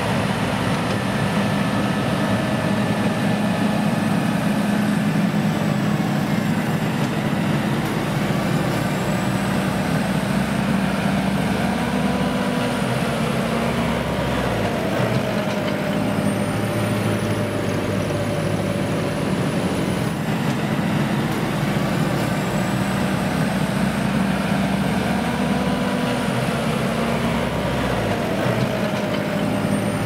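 Heavy diesel farm machinery working, a telehandler and big tractor, with the engine note rising and falling as they rev under load. A faint high whine rises and falls along with it.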